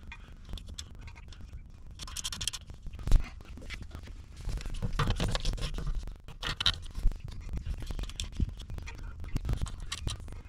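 Close-up handling noise of a hand fitting wires and terminals on a small wiring block bolted to a tractor's metal panel: scratching and scraping with scattered clicks, and one sharp knock about three seconds in.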